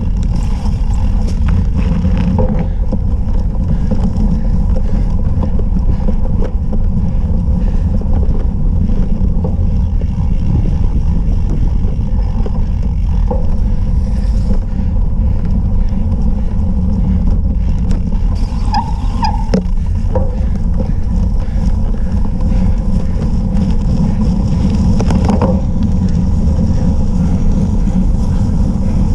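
Wind buffeting a bike-mounted action camera's microphone at racing speed on a cyclocross course, a steady low rumble with scattered knocks and rattles from the bike over rough dirt and grass.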